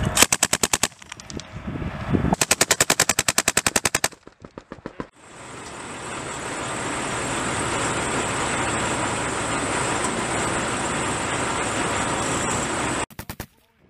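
Machine gun firing two rapid bursts: a short one of about eight rounds, then a longer one of about fifteen, followed by a few scattered shots. Then a steady engine noise, with a short burst of fire near the end.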